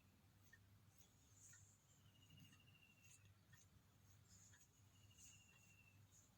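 Near silence: faint room tone with a low hum, and a faint high trill that comes twice, each about a second long.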